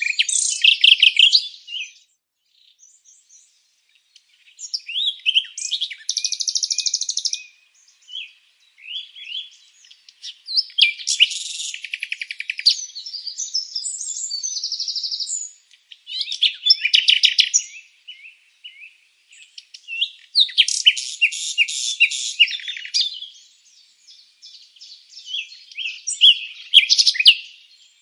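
Songbirds singing: a run of varied, high-pitched chirping phrases, some with rapid trills, each lasting one to a few seconds and separated by short pauses.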